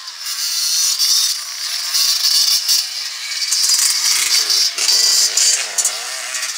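Dirt bike engines running as off-road motorcycles ride past on snow, one engine note rising and falling in the second half as a bike passes close.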